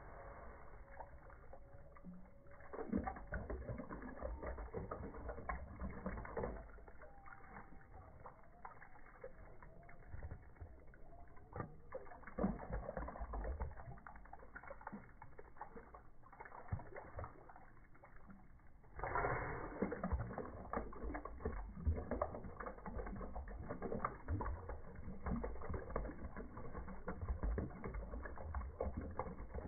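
A border terrier snapping and lapping at a jet of water from a garden hose: rapid wet clicks of its jaws and tongue with water splashing, getting louder about two-thirds of the way through.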